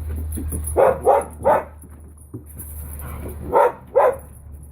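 Dog barking in play: three short barks about a second in, then two more near the end.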